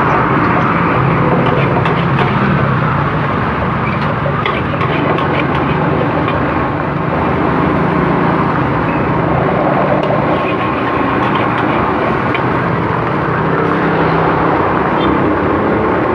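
Gas burner under a wok running with a steady roar while fried rice is cooked, with a few light metal clinks of the spatula against the wok.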